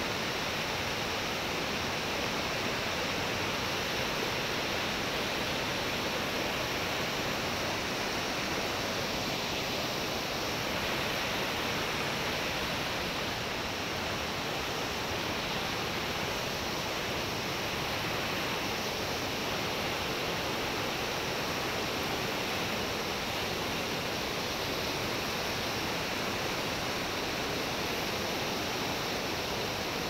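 Steady rush of a swollen, muddy river pouring over shallow rock shelves in white-water rapids; an even, unbroken wash of water noise.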